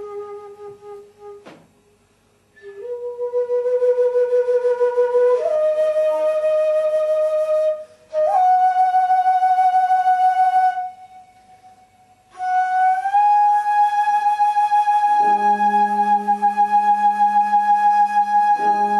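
Flute playing a slow melody of long held notes that climb step by step, with short breaks between phrases. About three quarters of the way through, a low sustained drone comes in beneath it.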